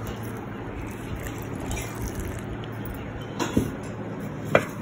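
Milk poured from a bowl into a steel mixer jar of ground biscuit powder: a soft, steady pour, then two light knocks near the end.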